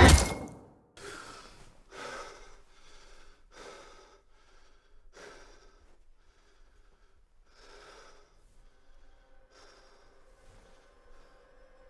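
A loud, dense sound cuts off sharply right at the start. A man's heavy, ragged breathing follows: short breaths at uneven spacing that grow fainter, with a faint steady tone coming in near the end.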